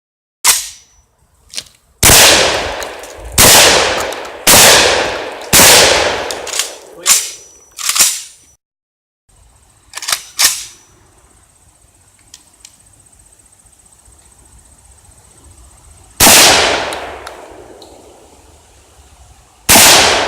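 Saiga-12 semi-automatic 12-gauge shotgun firing: four loud shots about a second apart, then a few quieter cracks, and two more loud shots spaced several seconds apart near the end. Each shot has a ringing tail.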